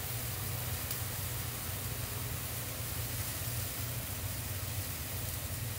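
Steady sizzling hiss of fish frying in a pan, over a low steady hum.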